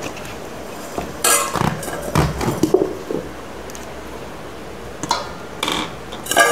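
Stainless steel mixer-grinder jar and its lid being handled: a scrape about a second in, then a few scattered metal knocks and clinks, some briefly ringing.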